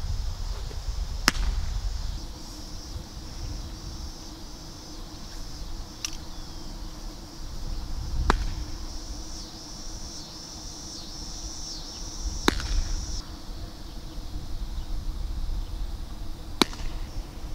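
Pitched baseballs smacking into a catcher's leather mitt: four sharp pops a few seconds apart, with a fainter click about six seconds in. Under them runs a steady high buzzing of insects and a low wind rumble.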